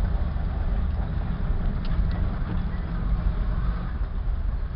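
Off-road 4x4's engine and drivetrain rumbling steadily, heard from inside the cab while it drives slowly along a dirt trail.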